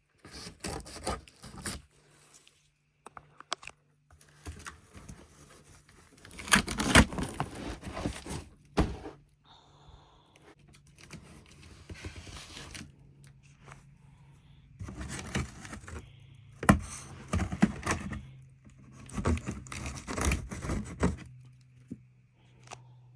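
Cardboard shipping box being opened by hand: tape and flaps tearing, with cardboard scraping and rustling in irregular bursts. The bursts are loudest about seven seconds in and again through the last third.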